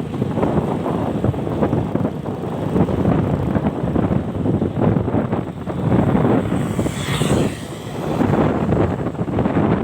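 Wind buffeting the microphone over the steady rumble of a running vehicle, with a brief brighter hiss about seven seconds in.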